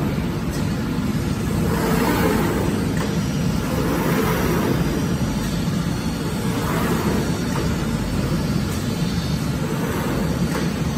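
CNC glass cutting machine running as its gantry and cutting head traverse a glass sheet: a steady low mechanical hum, with a hiss that swells and fades about every two seconds as the head makes its moves.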